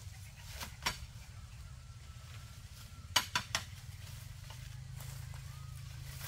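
A few light clinks of hard objects, like dishes or utensils knocking together: one about a second in, then three in quick succession about three seconds in, over a steady low hum.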